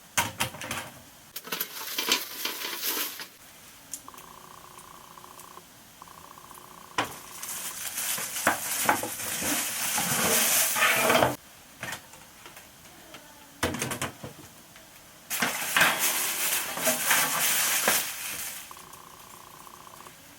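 Thin metal parts of a compact folding BBQ grill and fire pit clattering and clinking as they are handled, in four bursts of a few seconds each with quiet gaps between.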